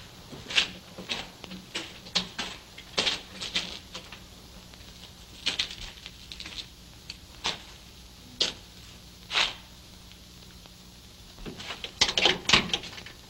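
Irregular footsteps and knocks on wooden boards, with a quick run of clicks and knocks near the end as a wooden door is shut and fastened, all over a faint steady hum of the old film soundtrack.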